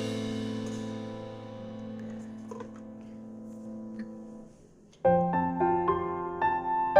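Background piano music: a held chord fades away over the first few seconds, then a new phrase of single piano notes begins about five seconds in.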